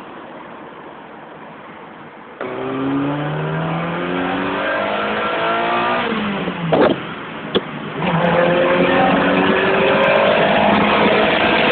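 Ferrari engine heard from inside the cabin. After a couple of seconds of steady wind and road noise it pulls hard with its note climbing, drops briefly with a couple of short knocks around seven seconds in as it shifts up, then climbs again, louder.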